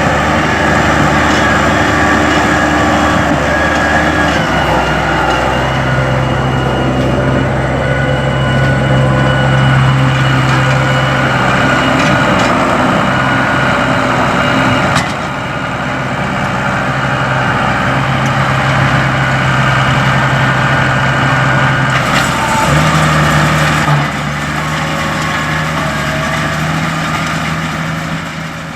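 Case IH farm tractor engine running steadily while pulling bean harvesting equipment through the field. Its tone and loudness change abruptly about 4 s, 15 s and 23 s in, and the sound fades out near the end.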